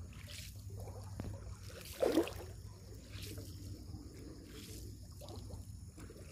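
A hand paddle dipping and pulling through calm lake water from a small boat, a soft splashing stroke every second or so, the strongest about two seconds in.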